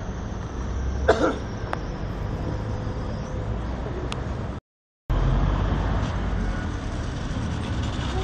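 Steady low rumble of road traffic, with one brief, loud sound about a second in. The sound cuts out for half a second midway and comes back louder.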